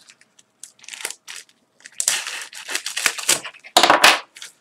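A small bubble-wrap packet being slit with a knife and torn open by hand, crinkling and ripping. The rustling comes in a run of rips from about two seconds in, and the loudest tear is near the end.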